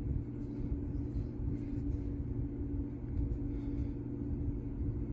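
A steady low hum with a rumble beneath it, with a few faint soft rubs of fingertips pressing a vinyl skin down onto a phone's back.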